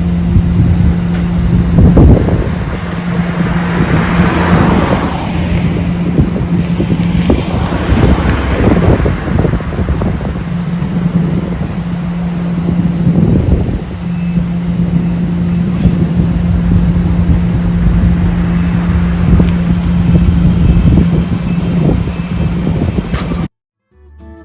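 Mitsubishi Diamante wagon's 3-litre V6 SOHC engine running steadily with a low hum, under repeated rough gusts of wind noise on the microphone. The sound cuts off abruptly near the end.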